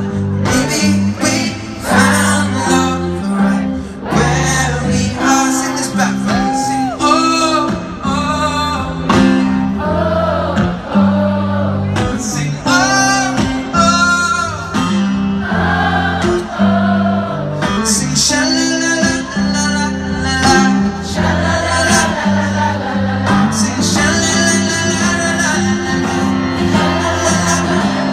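Live performance of a slow pop ballad: a man singing with electric guitar over a steady bass line.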